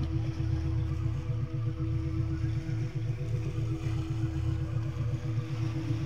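A meditation drone billed as a 3.5 Hz frequency track: a few steady low tones, the lowest with a rapid pulsing flutter. Under it are soft sea waves lapping on rocks and pebbles, with a faint wash about four seconds in.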